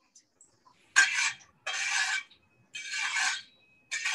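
Four scraping strokes against the inside of a wok, each a little under a second long, about one a second.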